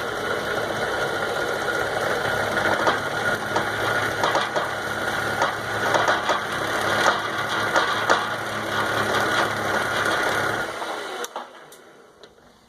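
Lathe running with a steady whine and an irregular knocking rattle, the noise it is making, then winding down and stopping about eleven seconds in.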